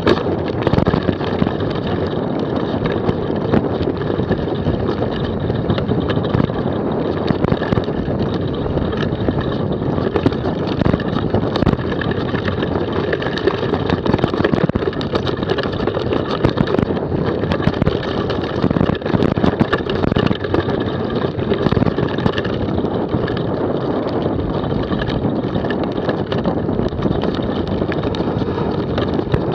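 Mountain bike descending a rocky forest trail at speed: constant rattling and knocking of tyres and frame over loose stones and roots, under a steady rush of wind on the action camera's microphone.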